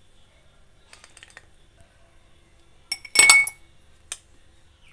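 An ice cube dropped into an empty drinking glass: one sharp clink with a brief ringing of the glass about three seconds in, after a few light taps, and a smaller tick about a second later.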